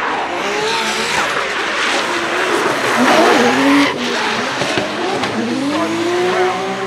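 A drifting BMW M3 E92 with a swapped-in Toyota 2JZ straight-six, its engine revving up and down over the squeal of spinning rear tyres. It is loudest about three to four seconds in, then drops suddenly, and it revs up steadily near the end.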